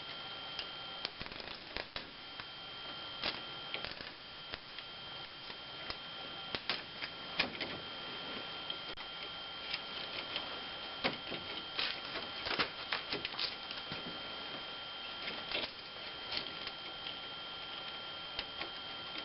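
Plastic zip ties being threaded and pulled tight around a plastic front trim piece: irregular small clicks and rattles, busiest in the middle.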